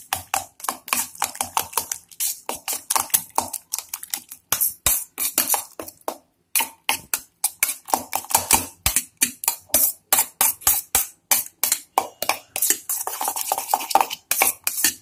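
Metal spoon beating eggs and chopped vegetables in a stainless steel tumbler: rapid, rhythmic clinking of spoon against steel, several strokes a second, with a brief pause about six seconds in.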